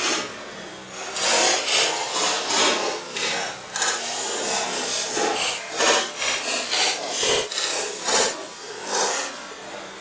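An electric space heater's plastic casing and wire grille crushed under a Sherp tyre, cracking and crunching in an irregular run of bursts as it is flattened.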